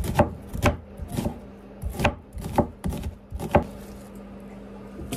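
Kitchen knife chopping vegetables on a cutting board: about eight sharp, uneven strokes that stop a little past halfway through.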